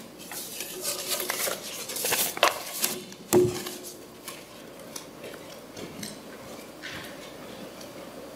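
Handling noise at a wooden pulpit: scattered clicks, knocks and rustles as things are gathered up and someone steps away. One louder knock rings briefly about three seconds in, and after that only faint ticks over room tone.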